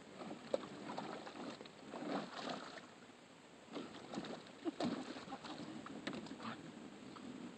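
German shepherd puppy splashing and pawing at the water in a plastic kiddie pool, in irregular splashes, with a couple of sharp knocks about half a second in and near the middle.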